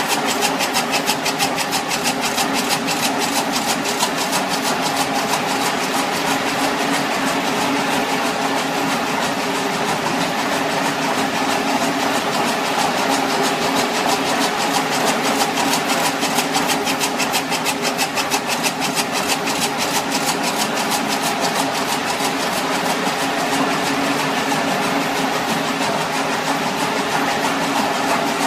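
Helical tomotherapy unit running during irradiation, its ring gantry rotating: a steady mechanical hum with a fast, fine ticking on top.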